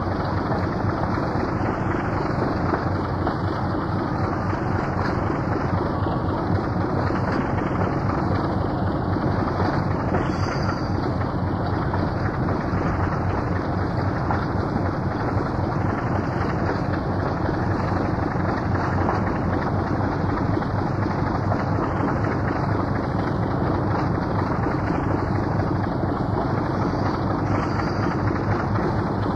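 British Rail Class 24 diesel locomotive's Sulzer six-cylinder engine running with a steady drone.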